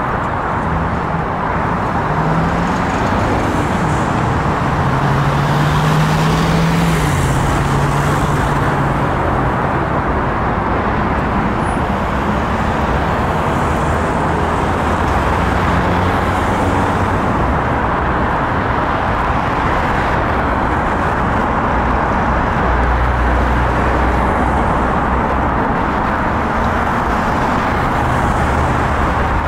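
Steady road traffic noise. A deeper low rumble joins in about three-quarters of the way through.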